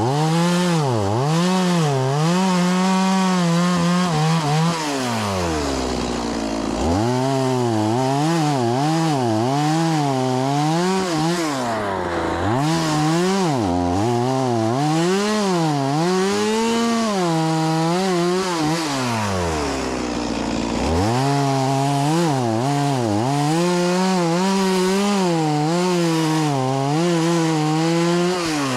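STIHL MS 180 two-stroke chainsaw cutting firewood, its engine pitch rising and falling repeatedly as the throttle is worked. It drops back to idle briefly about six seconds in, again around twenty seconds, and near the end.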